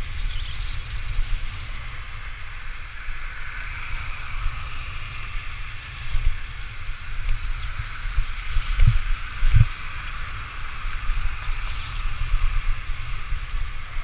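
Wind buffeting the microphone of an action camera on a moving vehicle, a steady low rumble under a steady hiss of tyres on the road. Two short low thumps come about nine seconds in, under a second apart.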